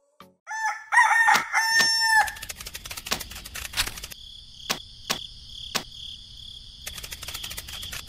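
A rooster crowing once, a cock-a-doodle-doo running from about half a second to two seconds in. After it comes a steady high chirring of insects with scattered ticks.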